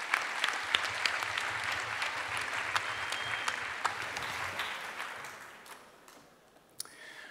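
Audience applauding, a dense patter of claps that dies away over the last couple of seconds, followed by a single sharp knock near the end.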